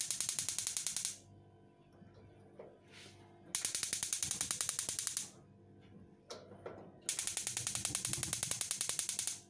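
Electric spark igniter of a Candy gas cooker ticking rapidly, about ten clicks a second, while the oven is being lit. It comes in three bursts: one ending about a second in, then two more of roughly two seconds each, with a few soft knocks between.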